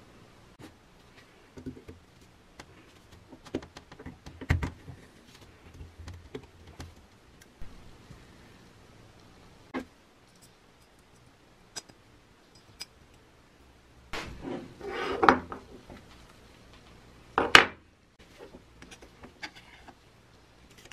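Small metal drill parts being handled and set down on a wooden workbench: scattered light clicks and taps, a longer clattering rattle about two-thirds of the way through, and a sharp clack soon after.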